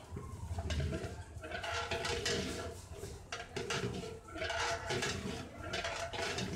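Long metal ladle scraping and knocking inside a large aluminium cooking pot as the contents are stirred. A wavering pitched sound runs through it.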